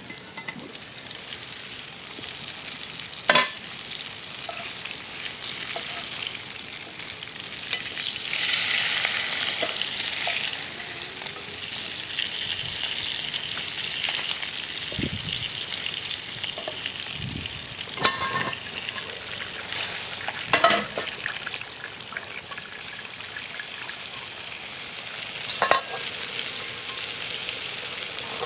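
Food sizzling in a frying pan over an open wood fire: a steady hiss that grows louder for a few seconds about a third of the way in, with about four sharp pops along the way.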